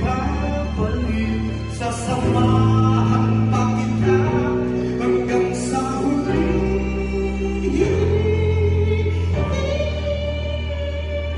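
A man singing into a handheld microphone over backing music, with deep bass notes that change every second or two.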